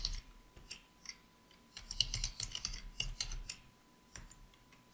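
Computer keyboard typing: a short run of quiet keystrokes, thickest in the middle, as a filename is typed.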